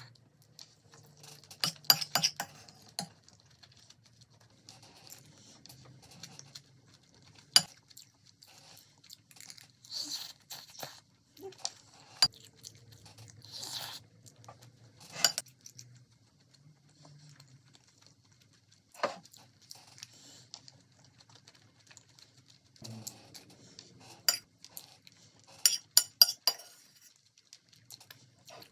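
Kitchen and tableware handling: irregular clinks, knocks and scrapes of utensils against dishes and pans, with short rustling or scraping stretches between them.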